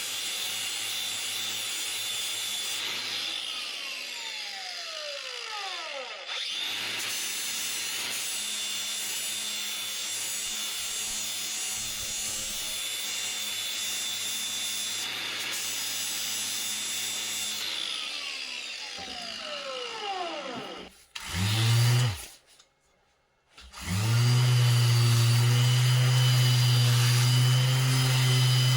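Electric grinder running against metal, grinding rust off an old axe. Twice its whine falls away as the motor runs down after being switched off. After a short gap it starts again and runs louder and steady to the end.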